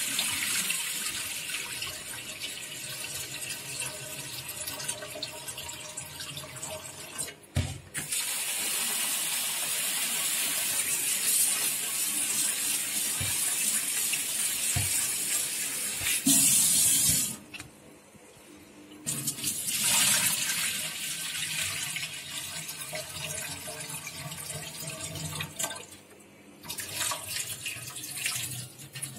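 Kitchen tap running into a stainless steel bowl while rice is washed, the rinse water swished and poured off into the sink. The flow breaks off briefly a few times, and there are a few short knocks.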